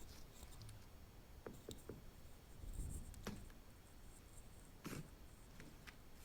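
Faint, sparse clicks and soft squishes of slime being pressed and handled.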